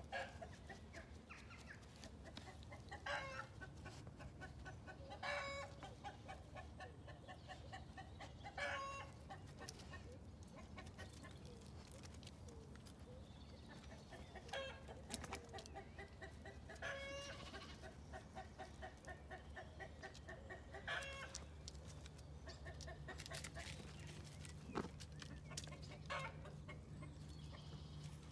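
Hen cackling: long runs of quick, evenly paced clucks broken every few seconds by a louder squawk.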